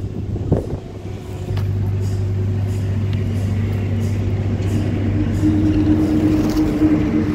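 An engine running steadily, a low hum that grows a little louder over the last couple of seconds.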